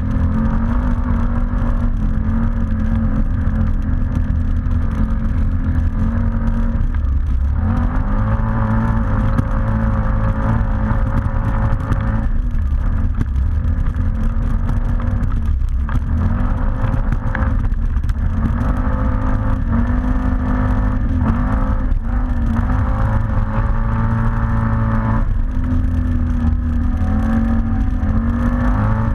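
ATV engine running under way, its revs rising and falling as the throttle is opened and eased off, with brief drops in engine note several times.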